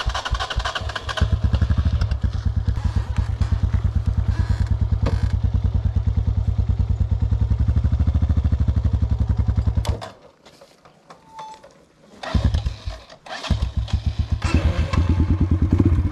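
Italika 200 cc motorcycle's single-cylinder four-stroke engine running with a rapid, even putter. It breaks off about ten seconds in, returns briefly a couple of seconds later, and after another short break runs again near the end.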